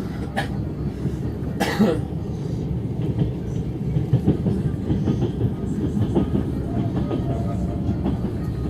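Passenger train running along the rails: a steady low rumble of the wheels and carriage. A short sharp noise is heard about two seconds in.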